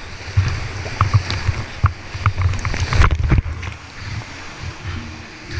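Whitewater rushing and splashing around a kayak running a rapid, heard through a helmet-mounted action camera. Water and spray strike the camera housing in repeated low thumps, with a few sharp knocks of splashes or paddle strikes.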